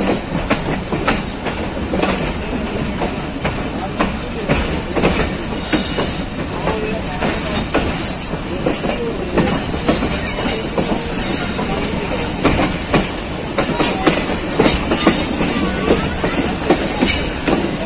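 Passenger train coach wheels clattering over rail joints and yard points as the train picks up speed, heard through an open coach window: a steady rumble with irregular clicks and knocks that grow louder in the second half.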